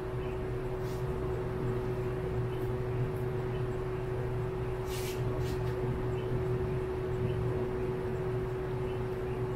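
A steady machine hum with one constant tone, with a few faint soft clicks about a second in and around five seconds in.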